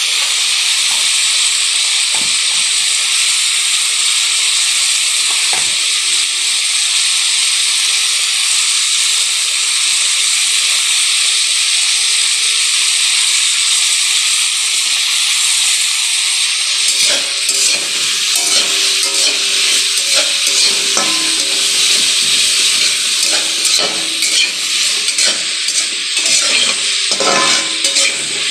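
Chopped tomatoes, onions and green peas sizzling in hot oil in a metal wok, a steady hiss. About two-thirds of the way through, the vegetables start being stirred, with repeated scraping and knocking against the pan.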